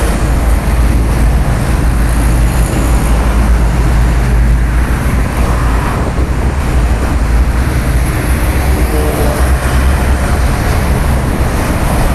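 Steady rumble of busy highway traffic, cars and trucks passing continuously.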